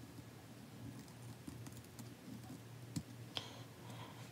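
Quiet scattered clicks and light taps over a low hum, with two sharper clicks about three seconds in, the second followed by a brief ring.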